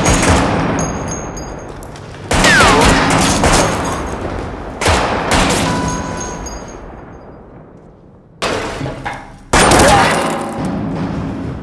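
Film gunfire: a series of sudden loud shots, one every few seconds, each dying away in a long echoing tail, with a falling whistle after one of them.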